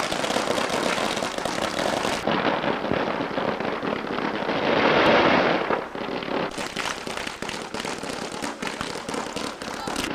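A long string of Chinese firecrackers going off in rapid, continuous crackling pops. The pops are loudest about five seconds in, then thin to scattered pops near the end.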